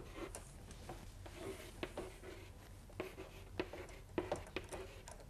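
Chalk writing on a blackboard: irregular short taps and scratchy strokes as words are chalked up.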